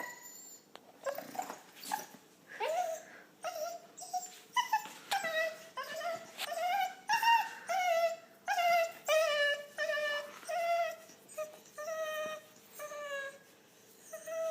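Field spaniel whining and whimpering in a string of short, pitched cries, about one a second, some sliding up or down in pitch.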